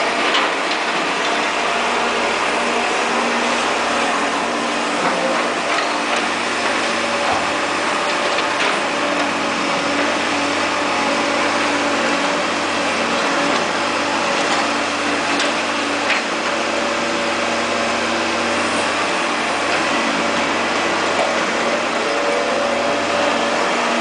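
Caterpillar E240B excavator's diesel engine running steadily at working speed, with a few light knocks.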